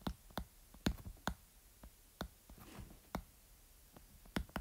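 Hard stylus tip tapping and clicking on a tablet's glass screen during handwriting: about a dozen short, irregular clicks with faint quiet between them.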